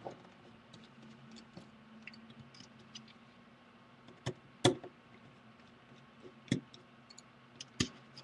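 Small screwdriver clicks and taps as tiny screws are worked out of a tablet's internal frame: light scattered ticks with four sharper clicks from about halfway on, over a faint steady hum.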